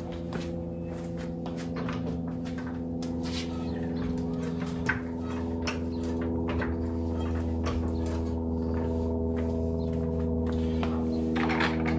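A steady hum of several layered pitches throughout, with scattered clicks and knocks as a hydraulic floor jack under a car is handled and pumped.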